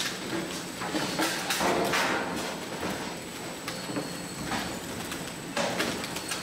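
Plastic waste being handled: irregular clattering knocks and crinkling swishes, several a few seconds apart, over a faint steady hum.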